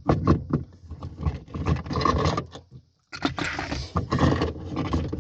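Hand-handling noises: irregular clicks, clinks and rustling from small screws and bolts being picked through by hand. The sound cuts out briefly near the middle, then the same handling noise resumes.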